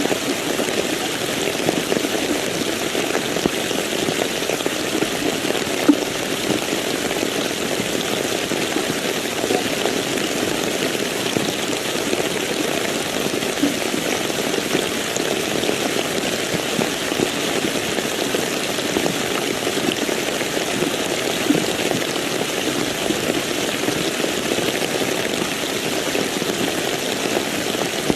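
Steady rain falling, an even dense patter, with a few slightly louder single drop ticks.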